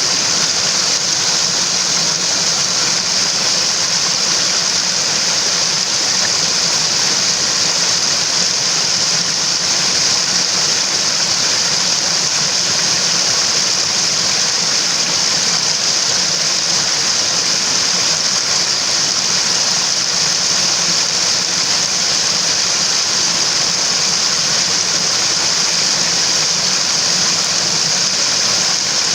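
Mountain stream water rushing in a steady, unbroken hiss, brightest in its upper range, with no change in level.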